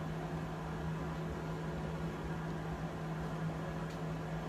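PowerXL air fryer oven running near the end of its cooking cycle: the convection fan blowing with a steady hum.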